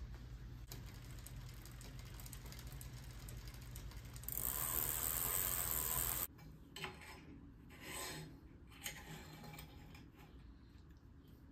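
Bicycle chain running over a Microshift Advent 1x9 rear derailleur and cassette as the cranks are turned by hand, a steady run of about two seconds midway that is the loudest thing heard. Before it come small clicks of hands on the chain; after it, a few light knocks and rattles of parts being handled.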